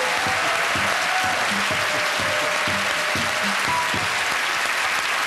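Studio audience applauding steadily, with the bottle band's music still going underneath: pitched notes blown across the mouths of glass bottles.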